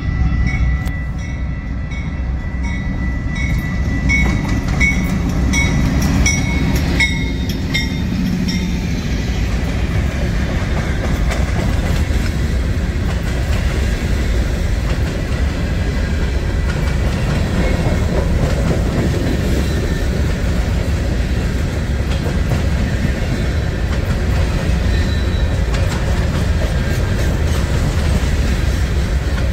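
Freight train passing at speed: a bell rings steadily, about twice a second, for the first seven seconds or so as the BNSF diesel locomotive goes by, then the steady rumble and wheel clatter of covered hopper cars rolling over the rails carries on.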